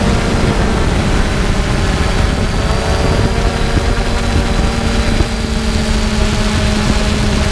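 3DR Solo quadcopter's four electric motors and propellers humming steadily in flight, heard from the camera mounted on the drone, the pitch drifting slightly as it manoeuvres. A low, uneven rumble runs beneath the hum.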